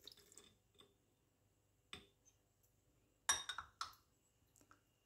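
A few light clinks and knocks of a small ceramic bowl handled and set down on a wooden cutting board beside a steel pot. There are faint ticks at first, one click about two seconds in, and a short cluster of knocks a little past three seconds in, which is the loudest part.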